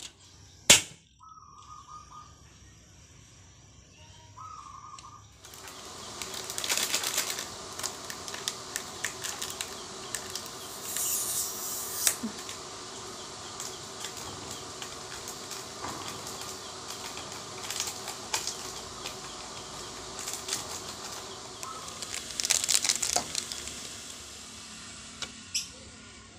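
Sharp click just after the start, then a gas stove burner hissing under a kettle of water heating for coffee, with scattered crackles and ticks; it stops near the end.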